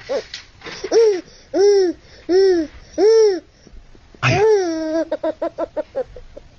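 A baby laughing hard: a run of drawn-out laughs, each rising and falling in pitch, about a second apart with a breath between them. About four seconds in, a longer laugh breaks into a quick string of short giggles.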